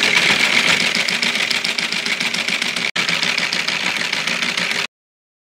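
Typewriter sound effect: rapid, even key clacks that stop suddenly near the end.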